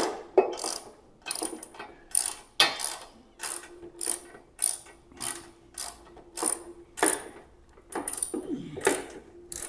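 Hand ratchet clicking in short back-strokes, about two a second, as it turns the shock-absorber mounting bolt on a motorcycle's rear frame.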